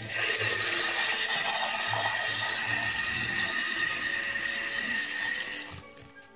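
Steady rushing hiss of water running through a pipe. It starts suddenly and cuts off near the end.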